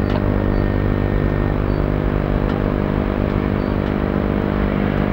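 Steady motor hum from the reverse bungee ride's machinery, holding one unchanging pitch, with a few faint ticks.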